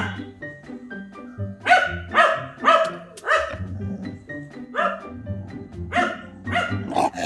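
A mixed-breed dog barking at its own reflection in a mirror: about eight short, sharp barks at uneven intervals, with background music underneath.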